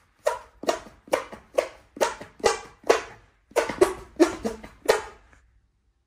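A run of sharp hand claps, about two to three a second, ringing briefly in a small room.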